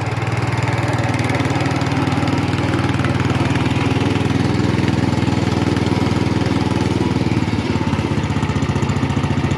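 The engine of a 1967 Sears Custom 6 garden tractor is running steadily. Its note changes slightly about seven and a half seconds in.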